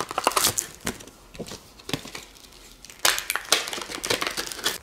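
Plastic crackling and clicking in two spells, about a second in and again from about three seconds in, as crinkly packaging and a clear plastic phone case are handled.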